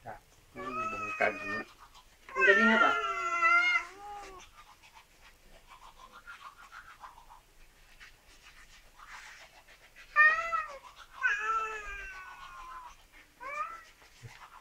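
Domestic cats meowing over and over. A loud, drawn-out meow about two seconds in overlaps with a second voice, then a few quiet seconds pass before another run of shorter meows near the end.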